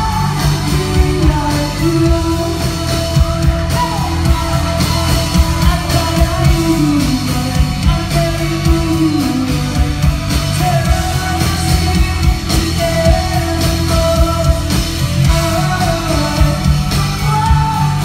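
Live rock band playing loud: a lead vocal sung over electric guitar, bass guitar and drums, with a steady drum beat throughout.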